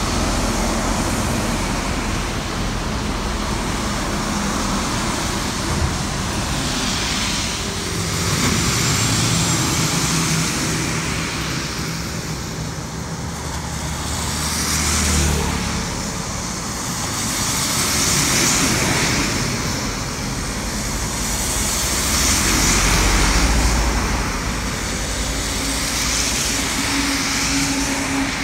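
Traffic passing on a rain-soaked highway: tyres hissing on the wet road as trucks, coaches and cars go by one after another, each pass swelling and fading. The low hum of heavy vehicles' engines comes through with some of the passes.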